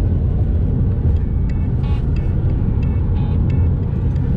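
Steady low rumble of road and engine noise heard from inside a car's cabin while driving at highway speed.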